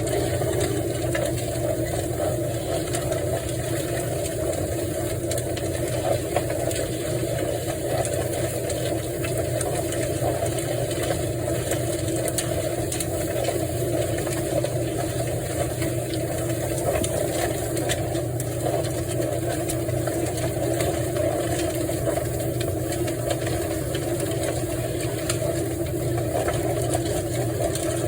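Motor-driven chicken plucker running steadily, stripping the feathers from a scalded bird.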